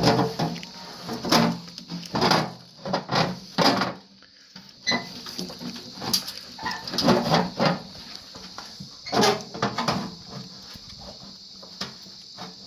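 Irregular metal clunks, knocks and scraping as a furnace blower motor is fitted onto the shaft of its squirrel-cage impeller.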